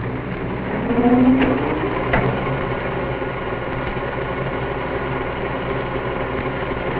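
Motors of a 1926 Vitaphone camera and sound-recording machinery starting up: a rising whine about a second in, with a couple of clicks, then settling into a steady mechanical hum. It is heard through an old, muffled film soundtrack.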